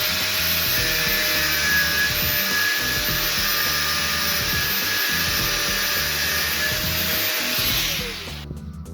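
An electric power tool motor running steadily with a hissing, grinding noise, then winding down about eight seconds in, its pitch falling as it stops. Background music plays underneath.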